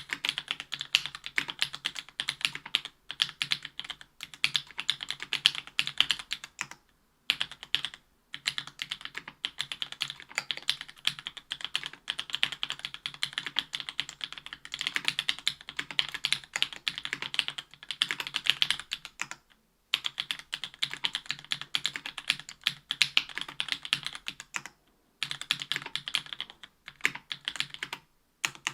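Steady typing on a Special Whale LinWorks keyboard with stock JWK Black 62g linear switches, an aluminium plate and GMK keycaps: a dense run of keystrokes broken by a few short pauses.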